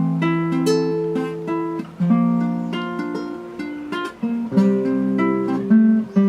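Acoustic guitar playing a picked introduction, single notes and chords ringing over one another, with no voice yet.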